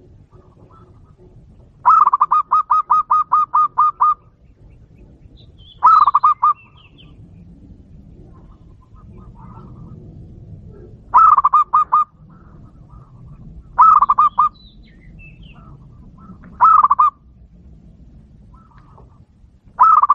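Zebra dove cooing in bursts of rapid, evenly spaced notes, about five a second. A long run of about two seconds comes near the start, followed by shorter runs of a few notes every few seconds.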